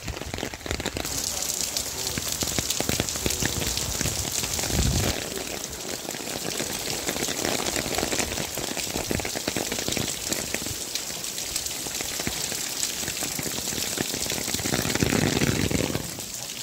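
Steady rain pattering on a clear plastic umbrella held overhead, a dense, even patter of many small drop ticks.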